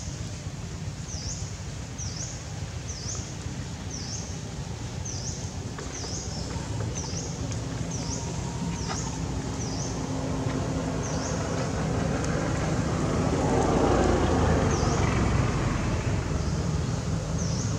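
A motor vehicle's engine drawing nearer, its low rumble growing louder to a peak about three-quarters of the way through. A small bird repeats a short high chirp about once a second, thinning out in the second half.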